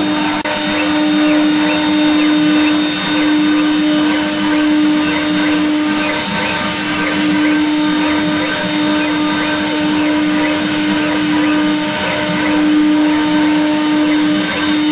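A multi-head wood-engraving CNC router's spindles run steadily while their bits cut carved reliefs into wooden plates. The sound is a steady whine over the noise of the cutting, with slight dips every few seconds.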